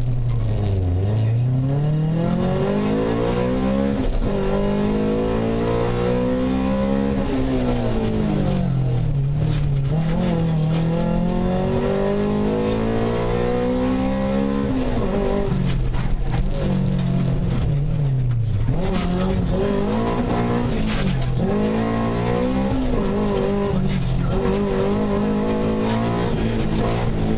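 Honda Civic VTi rally car's 1.6-litre VTEC four-cylinder engine driven hard, heard from inside the stripped cabin: the revs climb through the gears and drop away again and again as the car accelerates, shifts and brakes for corners.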